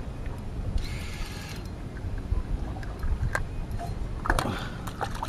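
Small battery-powered electric spinning reel running, winding in line, with a few sharp clicks in the second half over a steady low rumble.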